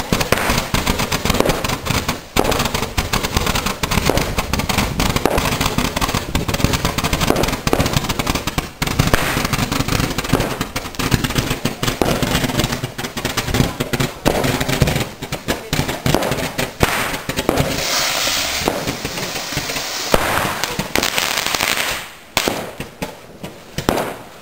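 Fireworks going off: ground fountains spraying sparks amid dense, rapid crackling and bangs. A steadier hiss comes through about eighteen seconds in, and near the end the noise drops away to scattered pops.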